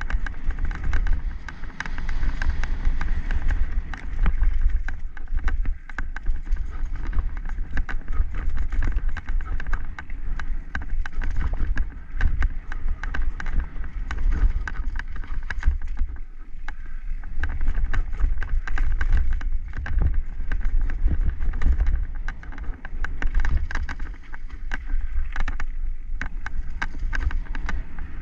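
Mountain bike riding fast down a rough dirt forest trail: wind buffeting the camera microphone, tyres rolling over dirt and roots, and the bike rattling with dense, rapid clicks over the bumps.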